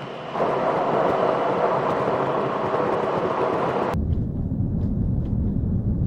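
Driving noise inside a moving BMW i3's cabin: a steady rushing of road and wind noise. About four seconds in it switches abruptly to a deep low rumble.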